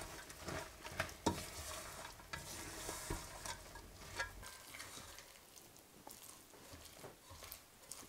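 Silicone spatula stirring and scraping a sticky mass of slivered almonds in a stainless steel pot over heat, the buttery mixture sizzling lightly, with a few sharp knocks of the spatula against the pot in the first couple of seconds. The stirring grows quieter about halfway through.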